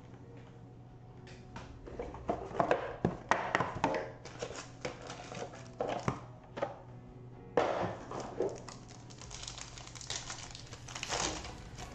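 Foil wrapper of a trading card pack being torn open and crinkled by hand, in several crackly bursts, over faint background music.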